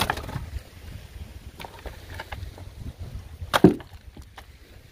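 A driftwood branch knocking and scraping on beach rocks, with one loud thud about three and a half seconds in as it is dropped onto the stones. Low wind noise on the microphone.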